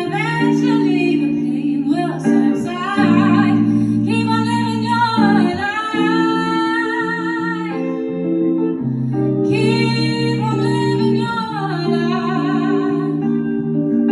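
A woman singing live over guitar chords, drawing out long held notes with vibrato, each about two to four seconds long.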